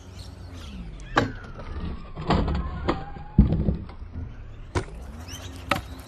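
Stunt scooter wheels rolling on rough asphalt with a steady low rumble, broken by about six sharp clacks of the deck and wheels striking down as the scooter hops around a log. The loudest clack comes about halfway through.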